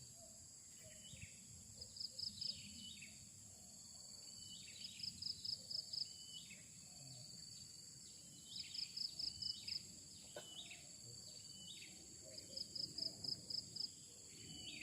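A bird repeats a phrase of about five quick high notes, with lower sliding notes, every three to four seconds, over a steady high drone of insects.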